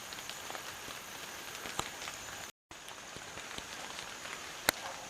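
Light drizzling rain, a steady patter with scattered drops ticking. The sound cuts out for an instant about halfway, and one sharp tick near the end stands out as the loudest.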